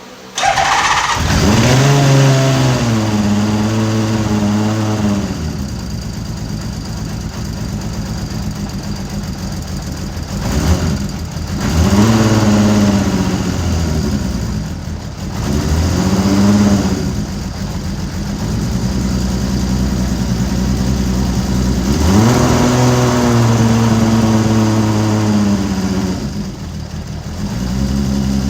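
Honda CBX inline-six motorcycle engine, through a 6-into-1 exhaust, starting about half a second in on freshly rebuilt carburetors, then revved up and down four times with steady idling in between.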